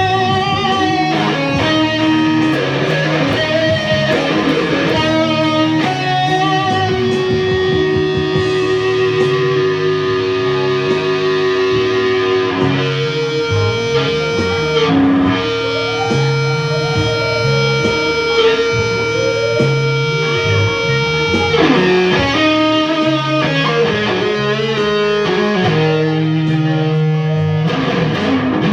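Electric guitar playing a rock jam over a bass line, with long held notes in the middle and wavering notes near the start and end.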